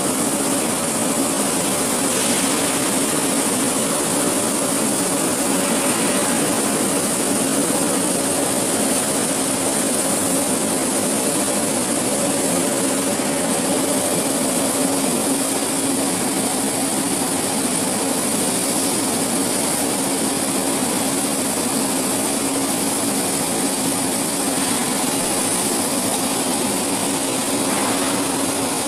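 Steady machinery din of a steel billet continuous casting plant: a constant low hum under a broad hiss, unchanging throughout.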